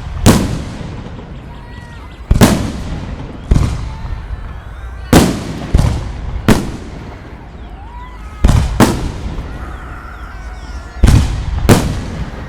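Fireworks shells bursting overhead: about ten sharp booms, some in quick pairs, each trailing off in echo.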